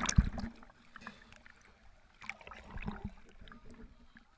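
Water splashing around a swimmer's waterproof camera as it comes up at the surface, fading within the first half-second to faint lapping and dripping with small knocks, a little louder for a moment about two to three seconds in.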